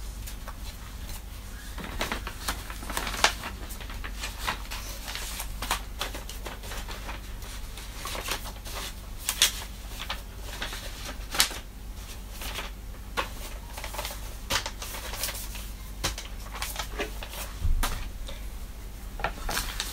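Paper and card rustling and crinkling as printed leaflets and a booklet are handled and leafed through, with a few sharper taps and clicks.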